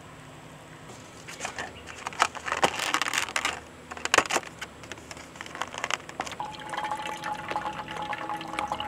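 Rustling and small clicks of camp cooking gear and packaging being handled, then water being poured with a faint steady tone over the last couple of seconds.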